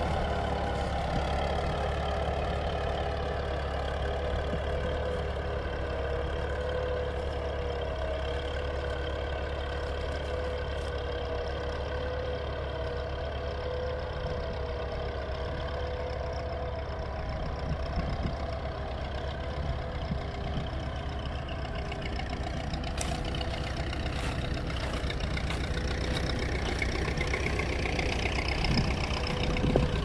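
1939 Fordson Model N tractor's four-cylinder engine running steadily under load as it pulls a trailed plough.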